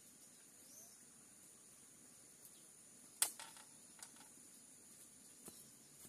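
Faint steady high-pitched insect chorus over a quiet pondside, with one sharp click about three seconds in and two fainter clicks after it.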